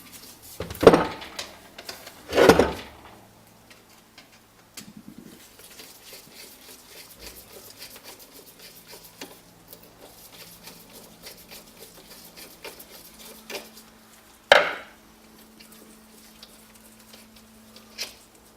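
Metal dynamo parts and hand tools clinking and knocking on a workbench while the dynamo is taken apart: sharp knocks about one and two and a half seconds in and again near the fifteen-second mark, with faint light clicking between.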